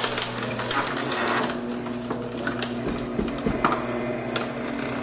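Paper shredder motor running with a steady hum while it chews through a disc, with irregular sharp cracks as the disc breaks up, several of them between about three and four and a half seconds in.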